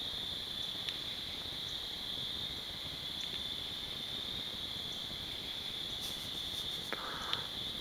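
Steady high-pitched chorus of night insects trilling without a break. A few faint clicks and a short rustle come near the end.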